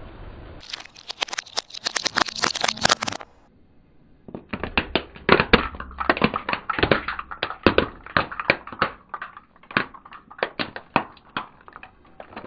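Plastic cracking and crunching under a slowly rolling car tyre. A short burst of dense crackling comes first, then after a brief pause a long run of sharp, separate cracks as a Rubik's cube breaks apart into pieces.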